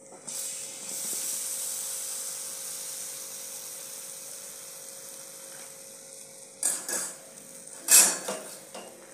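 Hot fried balushahi sizzling as they go into sugar syrup in an iron kadhai, a high hiss that rises about a second in and slowly fades. Near the end come a few sharp metal clanks of utensils, the loudest about eight seconds in.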